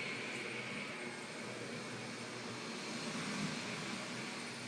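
Vacuum cleaner running steadily, a even rushing hum with a faint high whine.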